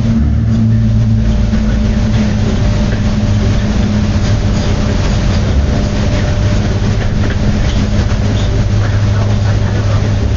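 Steady low hum under a dense, scratchy hiss, with faint scattered crackles and ticks through it.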